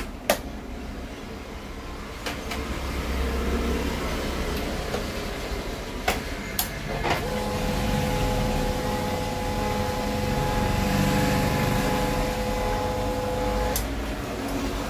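HP LaserJet 1020 Plus laser printer, covers off, running its power-on cycle: a few sharp clicks, then its drive motor and gears run with a steady whine from about seven seconds in that cuts off sharply near the end. The printer is powering up, so it has power again.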